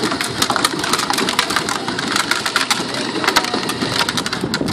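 Hard plastic wheels of a child's battery-powered ride-on toy Jeep crunching and rattling over rough, gritty pavement as it drives along, a dense irregular crackle.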